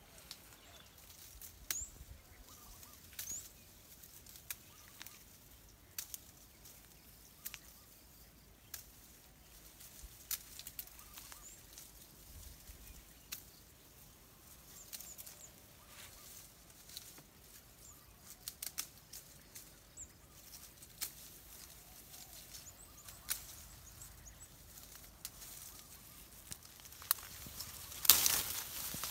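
Scattered light clicks and rustles of hands handling longan fruit and branches, with a louder rustle of leaves and twigs near the end as a fruit cluster is grabbed.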